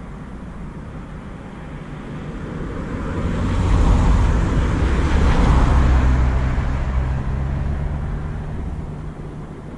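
A vehicle passing by, rising to its loudest about four to six seconds in and then fading, with a low steady hum under the second half.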